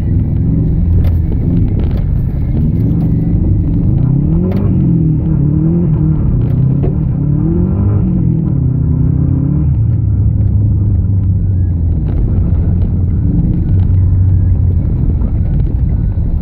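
Rally car's engine heard from inside the cabin, revving up and dropping back again and again as it is driven through the gears, with a few sharp knocks, then running at a steadier, lower note for the last several seconds.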